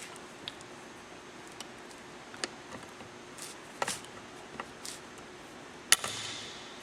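Hand pop-rivet tool setting a blind rivet in the vent window frame: several faint clicks as the handles are worked, then one sharp snap near the end as the rivet mandrel breaks off.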